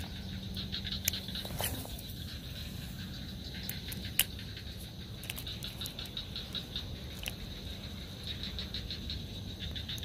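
Daido Predator 200L baitcasting reel being cranked in short spells, its gears giving off rapid light ticking, with a few sharper single clicks.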